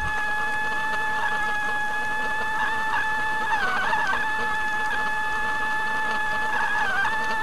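A boat's engine and propeller heard underwater while trolling: a steady whine on two tones, dipping briefly in pitch about four seconds in and again near the end.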